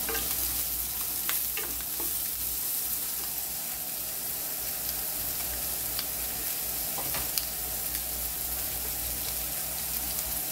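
Beef cubes and freshly added diced onion sizzling in hot oil in a stainless steel frying pan over medium-high heat: a steady frying hiss with scattered sharp crackles.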